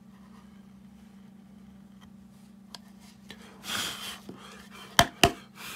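Small half-round carving gouge cutting into wood by hand: a short scraping cut a little before four seconds in, then two sharp knocks in quick succession about five seconds in, and another brief scrape near the end. A faint steady hum runs underneath.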